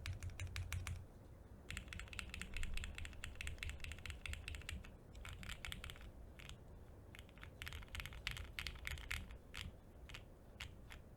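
Typing on a Portal65 custom mechanical keyboard with lubed Cherry MX Hyperglide Black linear switches, lubed TX stabilizers, a half plate and no dampening foam. Fast runs of keystrokes come in bursts with short pauses, thinning to a few single key presses near the end.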